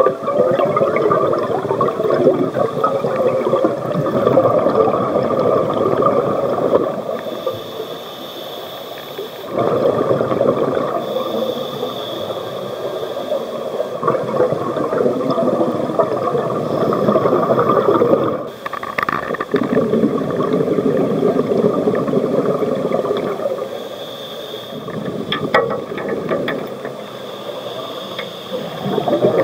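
Scuba diver breathing through a regulator underwater: long bubbling exhalations alternate with shorter hissing inhalations, several seconds each.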